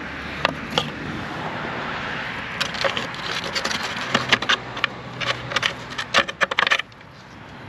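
Sharp plastic clicks and snaps, two early and then a quick irregular run through the middle, as the OEM rear-view camera is worked free of its plastic spring tabs in the liftgate trim panel.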